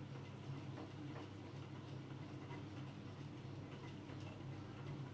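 Marker pen writing on a whiteboard: faint scratchy strokes and taps over a steady low hum.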